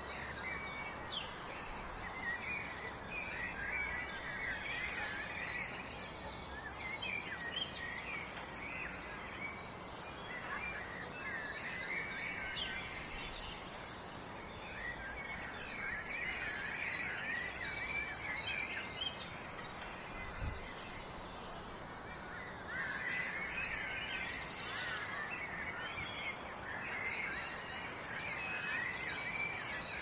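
A chorus of small songbirds chirping and warbling in spells every few seconds, with high pulsing trills coming and going, over a steady hiss of flowing water.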